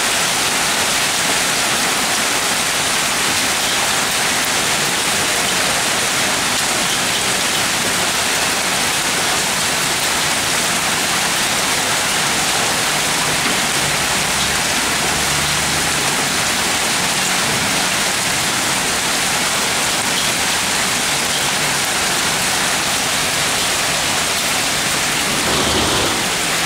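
Heavy hail, stones about 2 to 3 cm across, falling with heavy rain onto parked cars and the street: a steady, dense rattle and hiss.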